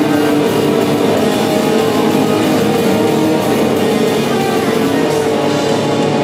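Live metal band playing loud, with electric guitars and a drum kit in a dense, unbroken wall of sound.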